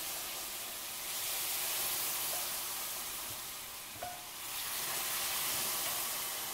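Chicken broth poured slowly into a hot stainless skillet, sizzling and steaming as it hits the pan. The sizzle swells twice, easing briefly about four seconds in.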